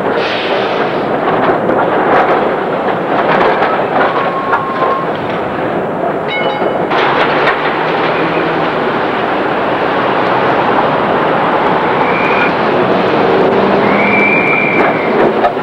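Melbourne W2-class tram running on its track: a steady clatter and rumble of wheels on rails, with a couple of brief high squeals near the end.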